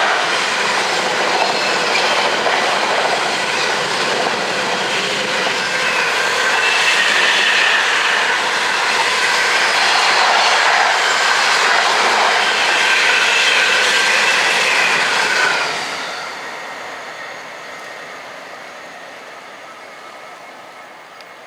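Freight train of container wagons rolling past close by in a loud, steady rush of wheel and rail noise. About fifteen seconds in the noise drops off suddenly as the end of the train passes, then fades away into the distance.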